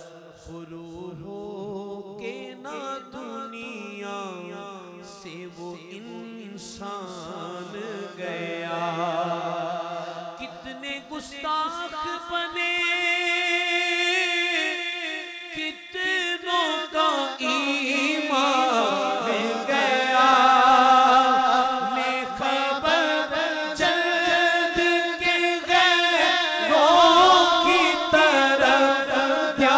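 Male voices singing a naat through microphones, long drawn-out melodic phrases without recognisable words. A second voice holds a low steady note under the lead for roughly the first ten seconds, and the singing grows louder toward the end.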